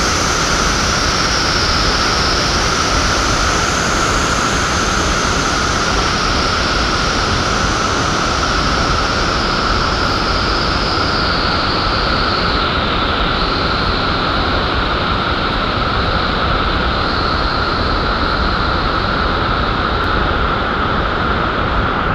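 Victoria Falls, the Zambezi plunging into its gorge: a loud, steady rush of falling water.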